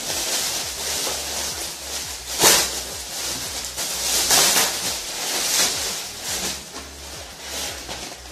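Clear plastic stretch wrap crinkling and rustling as it is pulled and peeled off a fabric carry bag, in irregular bursts, the loudest about two and a half seconds in.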